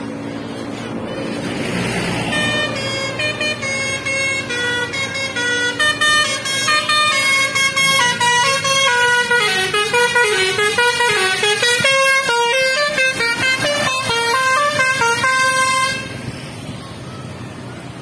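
A tour bus's basuri telolet horn, a multi-trumpet musical horn, playing a tune of quick stepped notes with a wavering stretch in the middle. It starts a couple of seconds in and cuts off suddenly near the end, over traffic noise.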